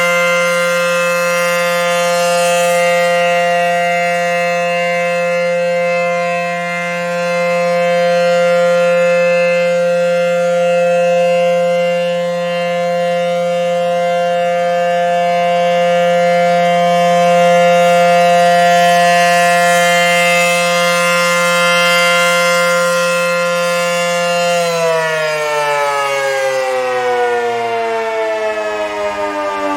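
ACA Howler outdoor warning siren sounding the steady full-alert tone, its level slowly swelling and dipping. About 25 seconds in it begins to wind down, its pitch falling steadily.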